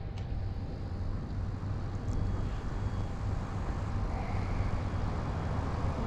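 Small boat's outboard motor running steadily with the boat under way, under a steady rush of wind and water noise.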